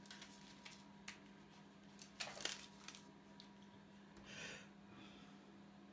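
Near-quiet room with a faint steady hum and a few light handling noises. There is a single click about a second in, a quick cluster of sharp clicks and knocks around two seconds, and a brief soft scrape a little after four seconds.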